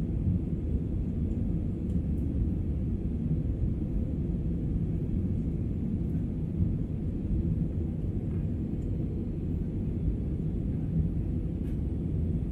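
Steady low rumble of an airliner cabin while climbing out after takeoff: jet engine noise and airflow over the fuselage, even throughout.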